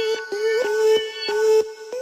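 Electronic background music with a steady beat and a repeating melody.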